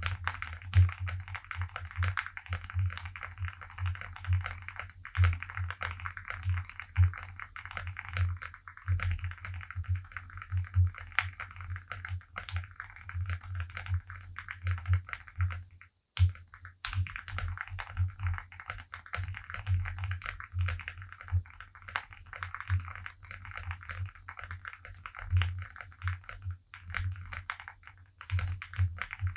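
Typing sound test on a Zoom65 Essential Edition mechanical keyboard: a fast, uneven stream of keystroke clacks, with a short break about halfway through.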